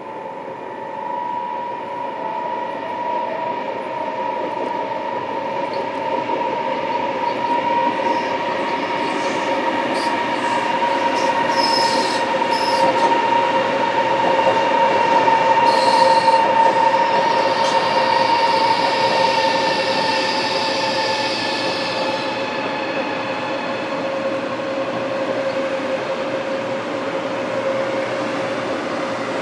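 CRH high-speed electric trains moving through the station: a steady two-tone whine that swells to its loudest about halfway and eases off, with sharp clicks and a hiss in the middle stretch.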